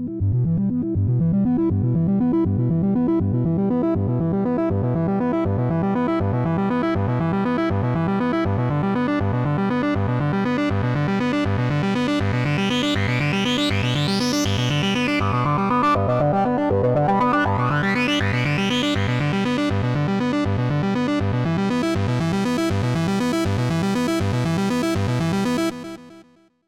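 Software synthesizer patch playing a steady, fast repeating sequence of pitched notes, with a filter sweeping open and closed twice around the middle; the sound stops near the end.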